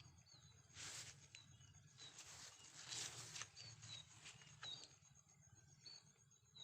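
Faint outdoor ambience: short, high, falling bird chirps about a second apart, with a few brief rustles in the first five seconds.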